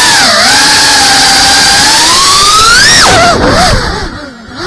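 FPV quadcopter's brushless motors whining, the pitch climbing steadily and then dropping sharply about three seconds in as the throttle is cut. The sound falls away briefly near the end before the motors spool up again.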